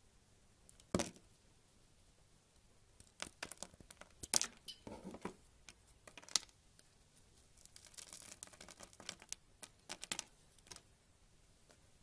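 A knife blade cutting into a bar of dry soap: crisp cuts and clicks in separate strokes, a sharp one about a second in, then a run of quick scraping cuts later on.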